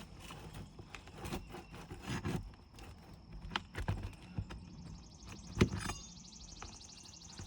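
Several sharp knocks and scrapes of a hand tool against asphalt roof shingles as a last roofing nail is worked out, the loudest knock about two-thirds through. A rapid, high pulsing buzz starts about five seconds in.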